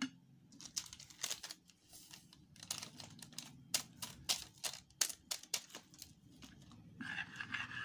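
Metal spoon clicking and scraping against a bowl in a quick, irregular series of light clicks while a thick yeast paste is stirred.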